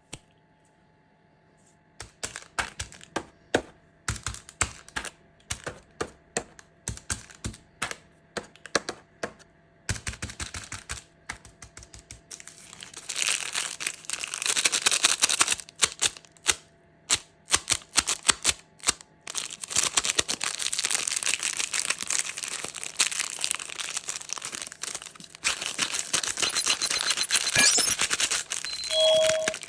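Sharp taps and clicks, two or three a second, then from about a third of the way in continuous crackling and crinkling of plastic candy wrappers being unwrapped. A brief ringing tone comes near the end.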